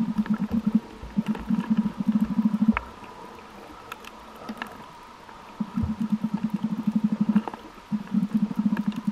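Muffled underwater sound of a snorkeler breathing through the snorkel, picked up by a camera in its housing. It is a low, fluttering buzz in stretches of one to two seconds with pauses between, and a few faint sharp clicks.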